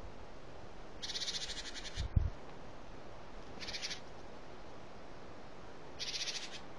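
Northern goshawk calling from its kill: three bursts of rapid, harsh chattering, the first about a second long, a short one in the middle and another near the end. A dull low thump about two seconds in.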